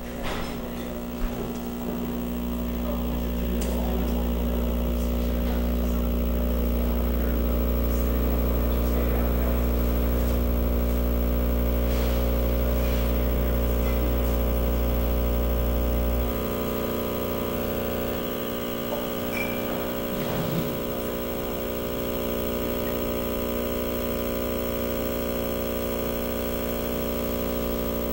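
Live electronic feedback drone: many steady held tones layered over a deep bass hum. The bass drops out a little past halfway and the upper tones carry on.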